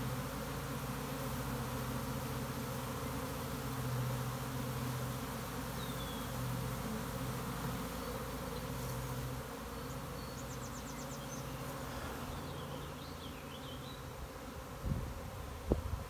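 A swarming honey bee colony in flight, a dense, steady buzzing drone that wavers slightly in loudness. A few low thumps come near the end.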